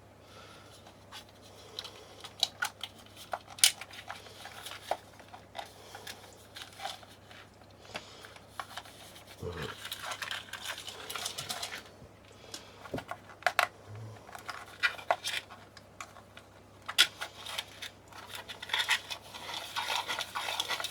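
Small plastic parts of a camping light being handled on a bench: scattered sharp clicks, taps and rustles at an irregular pace.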